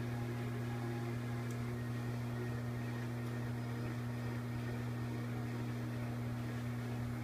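Steady low electrical hum with a second, higher hum tone, under a soft even fan-like hiss from running bench electronics.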